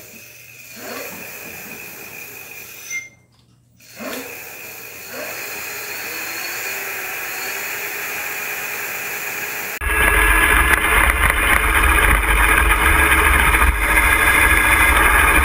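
Electric bike rear hub motor spinning the wheel with a steady whine, starting up twice. About 10 s in the sound changes abruptly to riding: wind buffeting the microphone over road noise.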